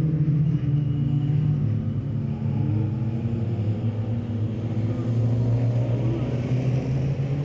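Several folkerace cars racing on a dirt track, their engines running together and revving. The engine notes overlap and rise and fall in pitch as the cars accelerate and lift through the bend.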